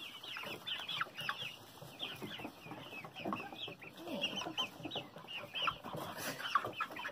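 A flock of backyard hens clucking, with many short, high calls overlapping.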